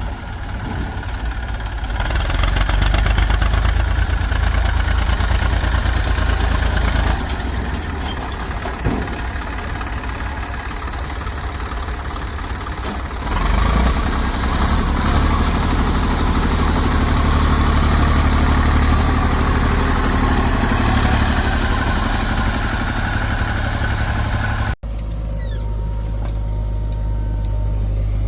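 Heavy diesel engines of a backhoe loader and tractors running at a construction site, the engine note swelling twice under load for several seconds at a time. Near the end it cuts abruptly to a steady, lower idle.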